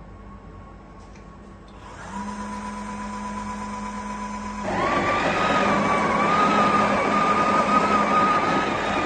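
A bean-to-cup coffee machine's built-in grinder grinding coffee beans. Its motor starts about two seconds in with a steady hum, then a couple of seconds later gets louder and noisier, with a wavering whine, as the beans are ground.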